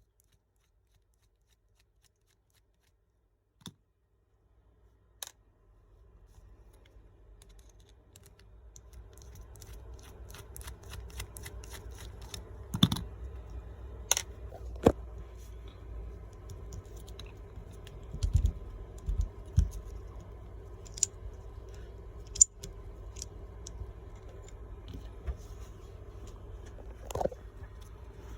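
Small metal clicks, taps and knocks of an Icon 3/8-drive ratchet head being taken apart by hand to expose its pawl and gear. Near silence for the first few seconds, then a low steady hum sets in under the irregular clicks.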